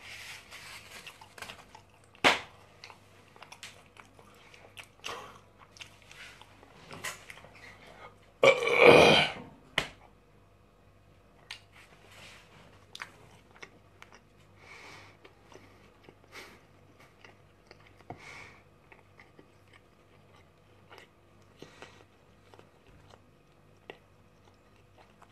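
A man chewing food close to the microphone, with small scattered mouth clicks and a sharp click about two seconds in. About nine seconds in comes a loud burp lasting just over a second.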